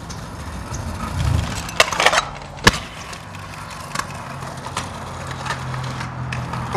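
Kick scooter wheels rolling on asphalt, with a few sharp clacks of the scooter. The loudest clack comes about two and a half seconds in.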